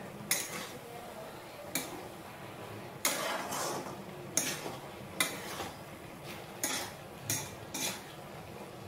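A spatula scraping and knocking against a metal wok as vegetable pieces are stir-fried, in about ten irregular strokes with one longer scrape about three seconds in.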